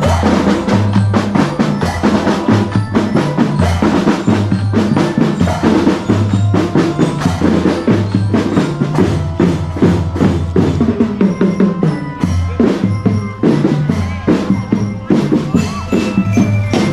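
School marching drum band playing a steady, driving rhythm on snare drums and bass drums.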